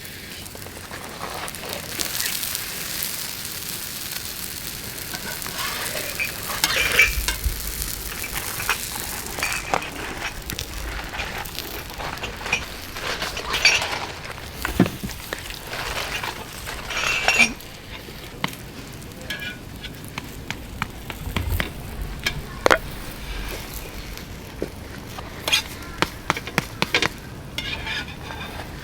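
Bolani (stuffed Afghan flatbread) frying in oil in a pan: a steady sizzle, louder for the first ten seconds or so, with scattered clinks and knocks of a utensil against the pan.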